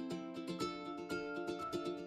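Background music: a light plucked-string tune with quick, repeated notes.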